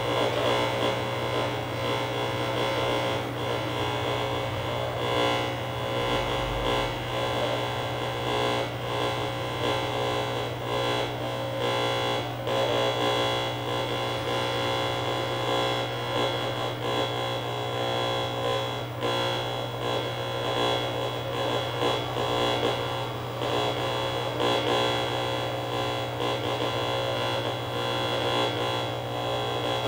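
Steady distorted electronic drone from a sound installation: a constant low hum under a dense layer of buzzing steady tones and hiss. It stops abruptly at the end.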